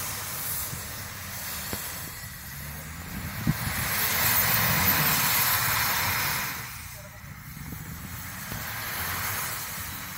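A 4x4 SUV's engine revs while its wheels spin in deep snow. Snow sprays off the tyres, loudest from about four to six seconds in, and then the engine drops back.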